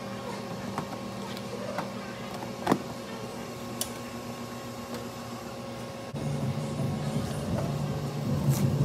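Steady machine hum with a few light clicks and one sharper knock in the first few seconds; about six seconds in a second, louder and lower hum starts up suddenly.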